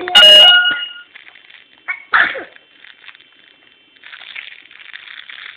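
A baby's voice: a loud, high squeal just after the start, a shorter vocal sound about two seconds in, and softer babbling near the end.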